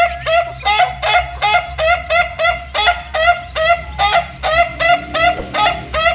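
Roosters calling in a rapid, very regular series of short squawks, about three a second.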